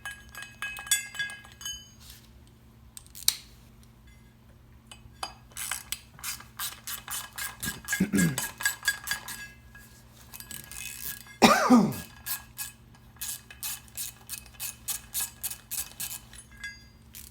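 Metal tools and clutch parts being handled: a run of sharp clinks and clicks, with two brief sliding sounds that fall in pitch, about eight and eleven and a half seconds in.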